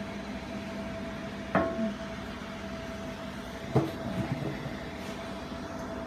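Jewelry laser welding machine humming steadily with a constant tone, and two sharp knocks, one about a second and a half in and a louder one about two seconds later.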